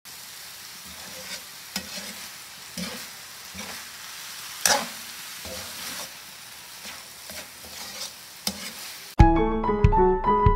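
Shredded coconut palm heart and carrot filling sizzling as it is stir-fried, with a metal spatula scraping and knocking against the pan at irregular intervals. Piano music starts suddenly about nine seconds in.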